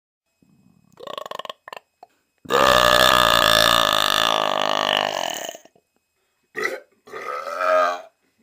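A person belching: one long, loud burp of about three seconds, starting a couple of seconds in, with shorter sounds before and after it.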